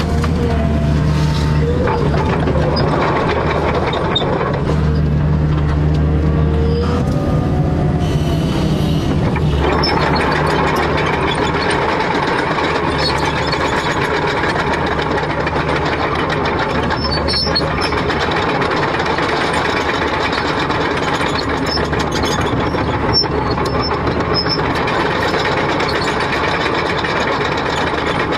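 Excavator's diesel engine running hard, loudest in two stretches in the first seven seconds, then a dense steady grinding noise with scattered high squeaks for the rest.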